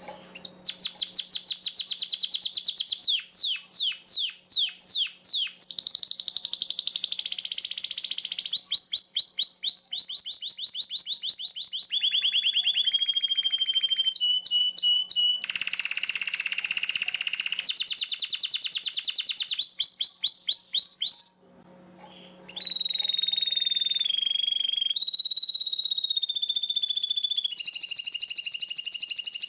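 Spanish Timbrado canary singing its song of tours: runs of rapidly repeated notes, some sweeping and some held as steady trills, each run changing to a new one every second or few. There is a brief break in the song about three-quarters of the way through.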